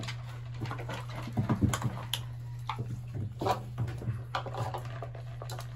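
Puppies eating dry kibble from a bowl: scattered crunches and clicks of kibble, over a steady low hum.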